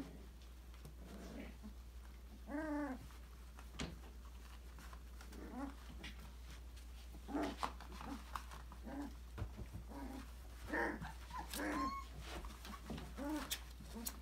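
Five-week-old Australian labradoodle puppies at play giving short, high whines and yips, one arching whine a few seconds in and a run of brief calls through the second half, with a few sharp clicks in between.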